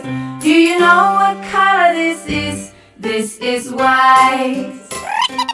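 Children's song: a high sung vocal melody over an instrumental backing with a steady bass line, dipping briefly about two and a half seconds in.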